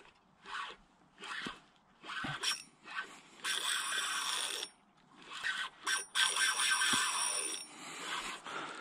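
Spinning reel's drag buzzing in repeated spurts, short ones and longer ones of a second or two, as a hooked striped bass pulls line off against the drag.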